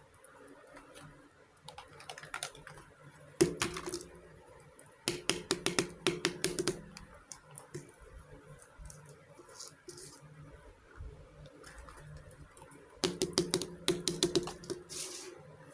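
Small toy kitchen pieces being handled, clicking and tapping against each other in three quick runs of light clicks with a faint ring, between soft rustles.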